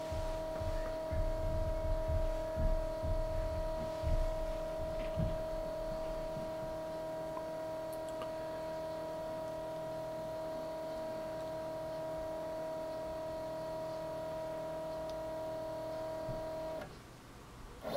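Stepper motor of a Zen Toolworks 7x12 CNC machine under a TinyG controller, driving an axis very slowly at 15 mm/min. It gives a steady whine of several pitches that cuts off near the end as the move finishes. A few low thuds come in the first few seconds.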